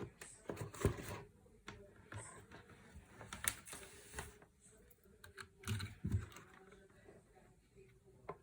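Keys of a mechanical keyboard with clicky blue-type switches being pressed, sharp clicks coming in irregular clusters.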